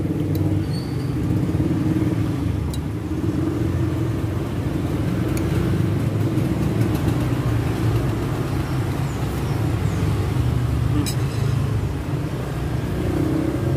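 Steady rumble of road traffic, motor vehicles running and passing close by. A few light clinks of a metal spoon and fork against a ceramic plate can be heard.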